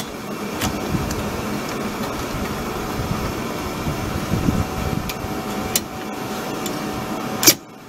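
Steady low mechanical hum, with a few light metallic clicks as the rear drum brake shoes and their springs on a 2007 Honda Civic are worked loose by hand; the sharpest click comes near the end.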